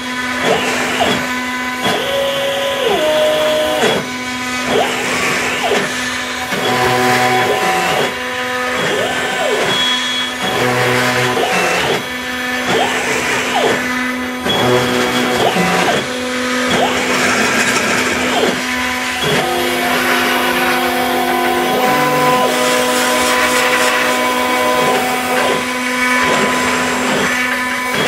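CNC router's stepper motors whining as the axes move, the pitch rising and falling with each speed-up and slow-down and holding at different notes between moves, over a steady motor hum.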